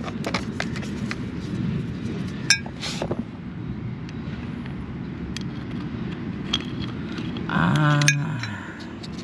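Scattered light metallic clinks and ticks from a steel fish tape and wires being worked at a metal post-lamp base, one about two and a half seconds in ringing briefly. They sit over a steady low rumble, with a short low hum near the end.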